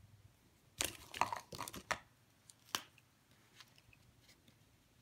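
Handling noise from a plastic water brush being picked up over drawing paper: a quick cluster of rustles and scrapes about a second in, then one sharp plastic click, then faint soft taps as the wet brush tip meets the paper.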